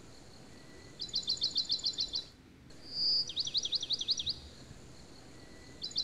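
A songbird singing phrases about a second long that recur every couple of seconds. One phrase is a quick run of about nine short high notes, heard about a second in and again at the end; the other, around three seconds in, is a held high whistle followed by rapid rising-and-falling notes.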